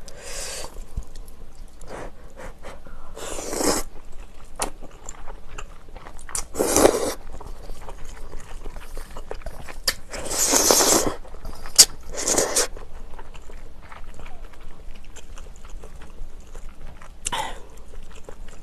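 Close-miked eating sounds: glass noodles (Korean dangmyeon) in spicy clam soup being slurped in several short bursts and chewed, with a longer sip of the broth about ten seconds in.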